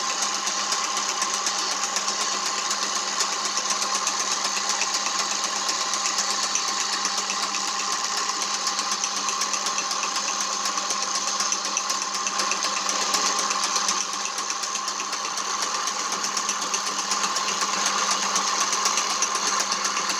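Small electric power tool running steadily with a constant whine, dipping slightly in level about two-thirds of the way through.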